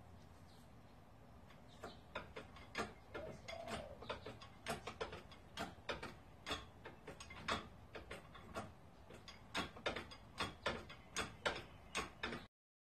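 Hand-pumped hydraulic ram from an engine hoist being worked, giving irregular clicks and clunks about one or two a second as it presses the driveshaft into a Porsche 944 torque tube. The sound cuts off suddenly near the end.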